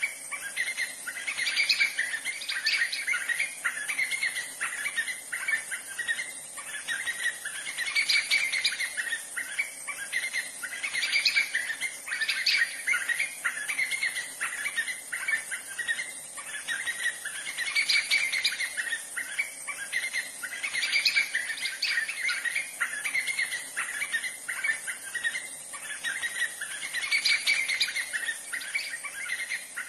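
White-fronted nunbird calling, a long run of rapidly repeated notes that overlap and swell every few seconds with no pause. A steady high hiss runs underneath.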